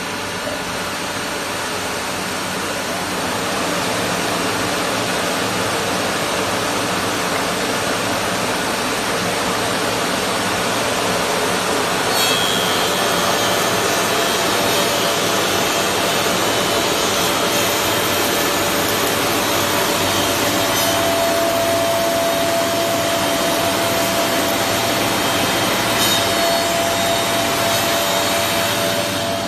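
Four-side planer (wood moulder) running and planing timber: a loud, steady machine noise of spinning cutter heads on wood, rising a little a few seconds in, with a steady high whine joining about halfway and a lower steady hum added later.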